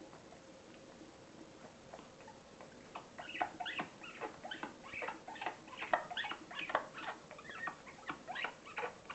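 A pet animal making rapid, high-pitched squeaks, several short squeaks a second, which begin about three seconds in after a quiet stretch.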